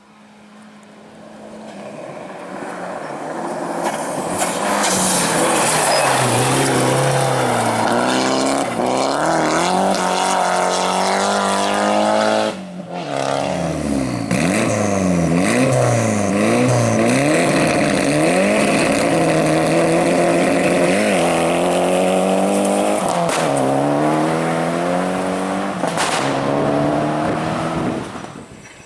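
Rally car engine revving hard and repeatedly climbing and dropping in pitch through gear changes and lifts, getting louder over the first few seconds as the car approaches. Its noise cuts briefly about twelve seconds in and fades out near the end.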